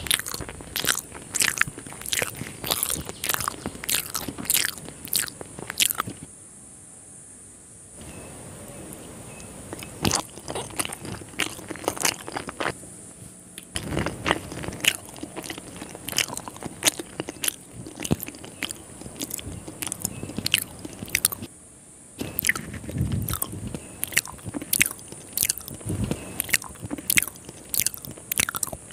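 Close-up chewing of a mouthful of chicken biryani: many quick wet clicks and crunches from the mouth, pausing briefly about six seconds in and again near twenty-two seconds.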